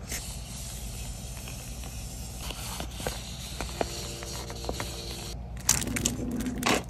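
Hands handling paper and plastic stationery packaging: scattered light taps and clicks, then crinkling and rustling from about five and a half seconds in.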